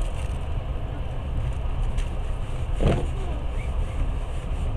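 Passenger train carriage running, a steady low rumble heard from inside the car, with a brief louder clack about three seconds in.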